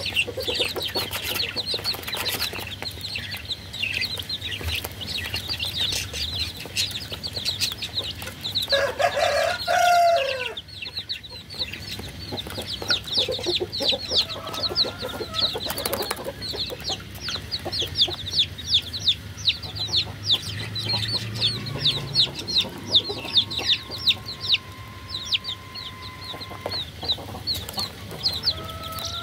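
A group of baby chicks peeping continuously: rapid, high, thin cheeps, each sliding down in pitch. About nine seconds in, a louder, lower chicken call cuts across them for a second or so.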